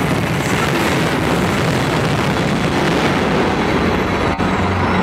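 Fireworks display at full barrage: a dense, continuous mass of crackles and bangs merged into a steady rumble.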